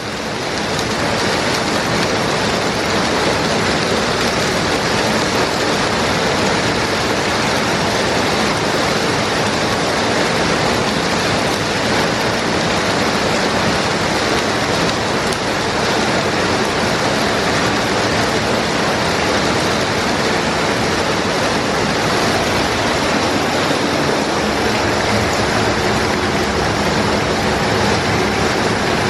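Heavy rain pouring down in a steady downpour, a loud, even hiss.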